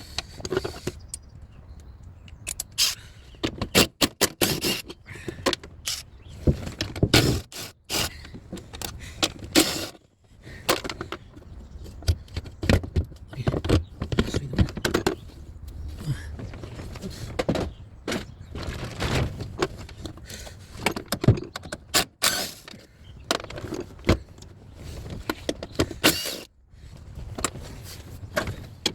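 Irregular clanks, clicks and scrapes of hand tools and metal and plastic parts being handled during work in a car's engine bay.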